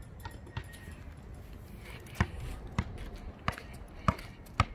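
Basketball dribbled on an asphalt court: a run of five sharp bounces about two-thirds of a second apart, starting about two seconds in.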